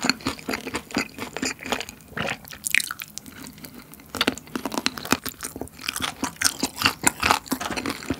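Close-miked crunching and chewing of Bburinkle fried chicken, its crust coated in cheese seasoning, as meat is bitten off a drumstick bone: dense crisp crackles, easing briefly about three seconds in.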